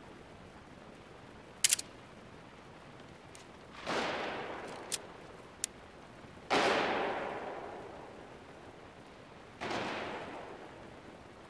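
A whip lashed among hanging balloons in a large echoing hall: one sharp crack, two smaller snaps, and three louder bangs that ring on for a second or two.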